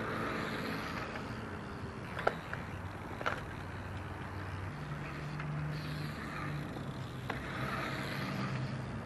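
Steady low hum of a motor vehicle engine running, its pitch stepping up about halfway through, with two sharp clicks about a second apart a couple of seconds in.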